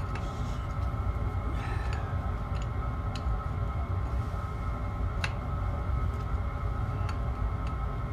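Steady hum of a small diesel air heater running, with a few faint sharp clicks scattered through it.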